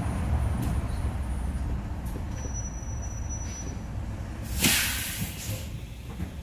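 City bus engine running with a low steady rumble as the bus slows in traffic, then, just past the middle, a short loud hiss of compressed air from the air brakes that fades out over about a second.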